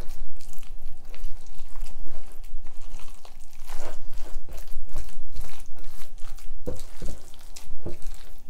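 A spatula stirring a thick ricotta, egg and chopped-vegetable filling in a glass bowl: irregular wet squishing and scraping strokes, with a couple of sharper knocks about two-thirds of the way in.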